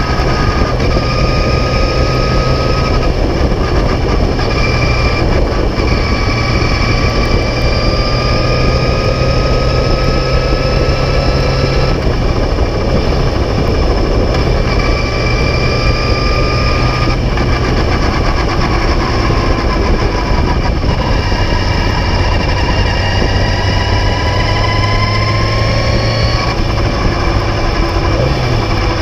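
Onboard sound of a 1976 Beagle Mk4 clubmans racing car's engine running at fairly steady revs, its pitch drifting slowly up and down.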